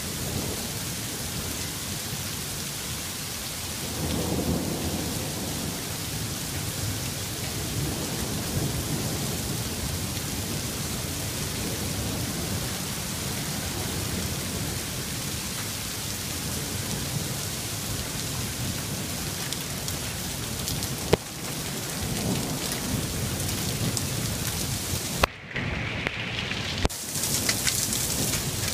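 Heavy hail and rain pelting down in a steady hiss, with a low rumbling swell about four seconds in. There is a sharp click about 21 seconds in, and the sound briefly cuts out near the end.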